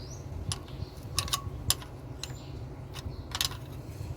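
Hand tools clicking and clinking against metal on an engine's rocker-arm valve gear: about half a dozen separate sharp metallic clicks while valve bridge adjusting screws are being set.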